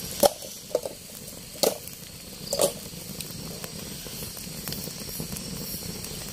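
Campfire crackling and hissing under grilling fish, with a few sharp pops in the first three seconds.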